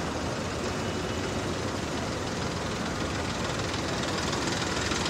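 Farm tractor's diesel engine running steadily as it drives through floodwater.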